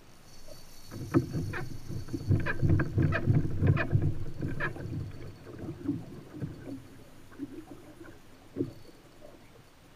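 Irregular knocks and thuds on a plastic sit-on kayak with water sloshing against the hull, heaviest from about one to five seconds in and fading after, with one last knock near the end.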